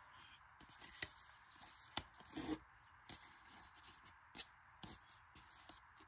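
Faint paper rustling and a few light ticks and scrapes as hands handle a paper envelope and unwind the string tie of its button-and-string closure.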